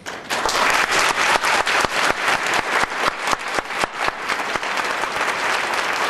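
Audience applauding, breaking out suddenly and holding steady, with sharp individual claps standing out at first.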